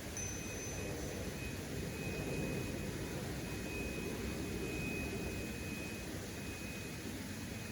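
Steady rushing of a waterfall, with a faint thin high tone held through most of it.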